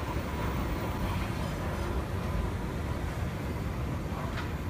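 Central–Mid-Levels outdoor escalator running: a steady low mechanical rumble of the moving steps and drive.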